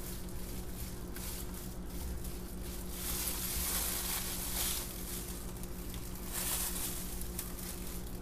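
Soap batter being stirred in a plastic pitcher with a spatula while loose plastic gloves crinkle, in two louder crackly spells, the first about three seconds in and the second shorter, near the end. A steady low hum runs underneath.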